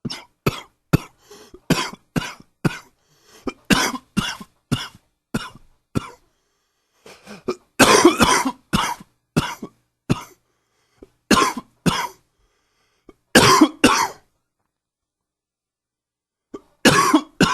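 A man coughing repeatedly with bronchitis: a string of short coughs about two a second, then a longer, harder fit about eight seconds in, further coughs in pairs, and after a pause of about two seconds a few last coughs near the end.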